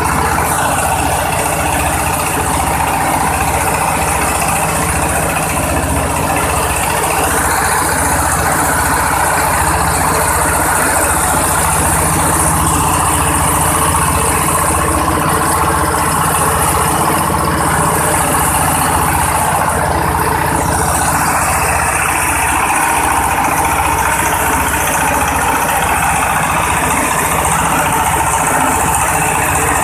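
Engine-driven oil palm frond chopper running steadily at a constant speed.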